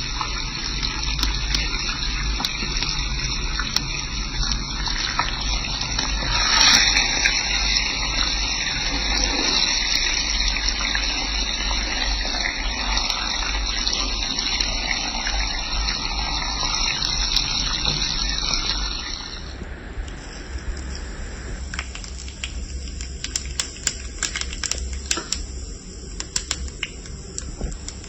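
Hilsa fish pieces frying in hot oil: a steady sizzling hiss. About two-thirds of the way through, the sound changes abruptly to a quieter sizzle with scattered sharp clicks.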